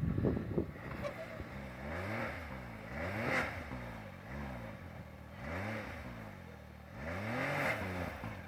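Side-by-side UTV engine revving up and falling back again, about four times in a row, with a short clatter right at the start; the throttle work of a machine struggling for traction in a snow drift.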